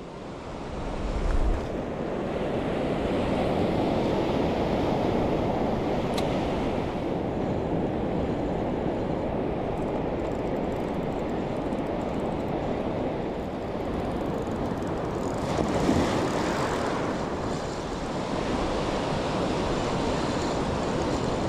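Ocean surf washing in over a sandy beach: a steady rushing wash of waves, swelling louder about a second and a half in and again around sixteen seconds.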